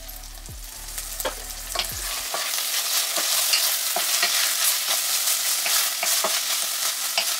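Frozen green beans and spinach sizzling in a pot after olive oil is poured in, the sizzle swelling about two seconds in. A wooden spatula stirs the vegetables with many small scraping clicks against the pot.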